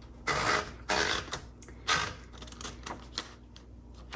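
A sheet of paper being fed back into a 1960 Royal Diana manual typewriter: three rustling swishes of paper against the platen, then several short mechanical clicks from the carriage.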